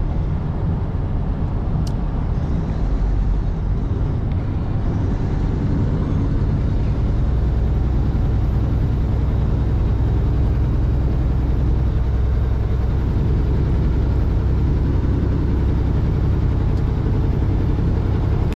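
Semi truck on the road: a steady low rumble of engine and road noise that holds at an even level.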